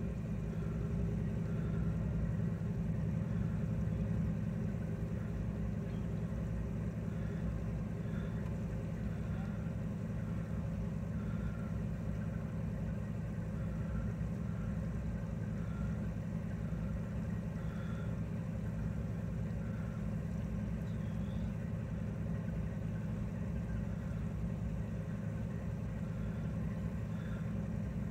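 Steady drone of an idling engine, heard from inside a parked car's cabin.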